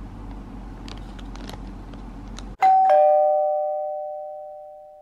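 A two-note ding-dong chime like a doorbell, about two and a half seconds in: a higher note and then a lower one a quarter second later, both ringing on and fading slowly. Before it, faint room tone with a few light clicks.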